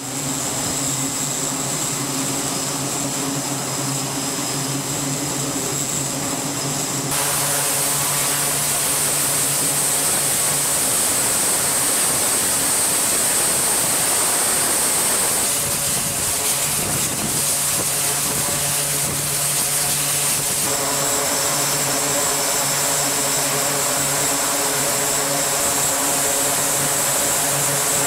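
Aircraft engines running on a carrier flight deck, among them an E-2 Hawkeye's turboprops: a steady high turbine whine over a low propeller hum. The sound changes abruptly a few times, at cuts between shots.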